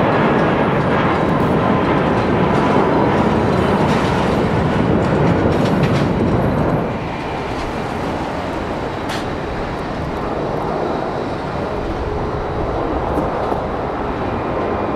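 Jet airliner's engines at take-off power, a loud steady roar that drops noticeably about halfway through and carries on more quietly.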